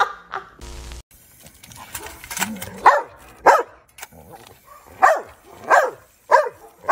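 Boxer dog barking in short, sharp barks, a run of about five, a pause, then another run, at the water from a paw-pedal fountain it is stepping on.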